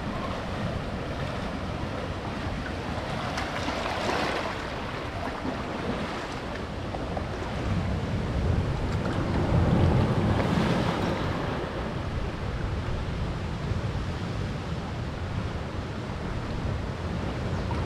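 Sea surf washing among shoreline rocks, with wind rumbling on the microphone; the noise swells to its loudest about halfway through.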